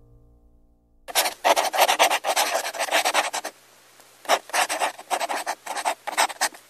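Felt-tip marker scribbling rapidly back and forth on paper while colouring in, in two quick bouts with a brief pause between them.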